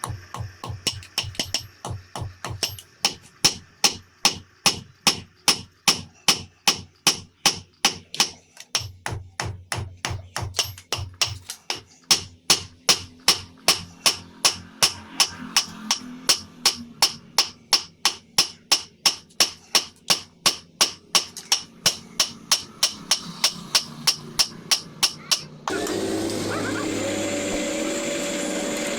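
Hand hammer striking hot iron on an anvil: a knife blade being forged, in a steady rhythm of about two to three blows a second. Near the end the hammering stops and a steady motor-like whirring takes over.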